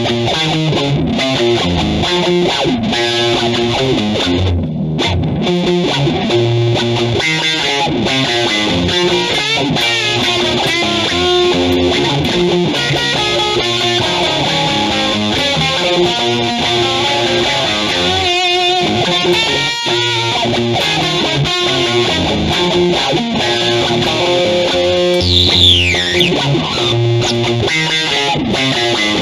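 Instrumental dub music: electric guitar played through effects with some distortion, over a low bass line and steady drums. Near the end a quick falling sweep effect cuts across the mix.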